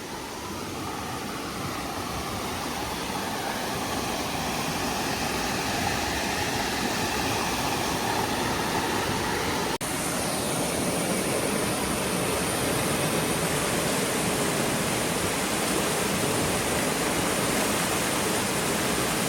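Waterfall rushing in full flow after heavy rain: a steady noise of falling water that slowly grows louder, broken briefly about ten seconds in, after which it is brighter and hissier.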